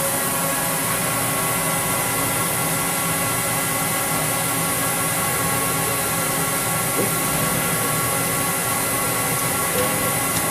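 Steady machinery hum with several steady whining tones from a powered-up Fidia D218 CNC vertical machining center, unchanging throughout.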